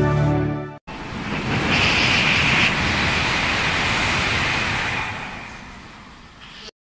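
A Kyushu Shinkansen train passing through the station at speed: a loud rush of air and running noise that swells and then fades away over a few seconds. Background music cuts off abruptly under a second in, just before it.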